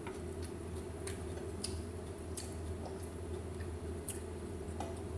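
Faint eating sounds: a few scattered small clicks and soft squishes of fingers picking fried fish off a plate and chewing, over a steady low hum.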